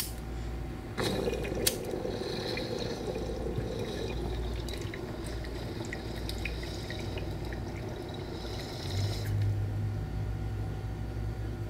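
Water bubbling and gurgling in a glass mason jar bong as smoke is pulled through it, with scattered small ticks and a couple of sharp clicks near the start. It ends with a breathy exhale.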